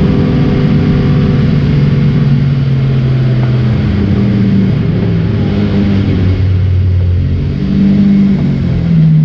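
Alfa Romeo Giulia TZ's twin-cam four-cylinder engine at racing speed, heard from inside the cockpit. Its note drops about four seconds in, stays lower for several seconds, then climbs again near the end as it accelerates.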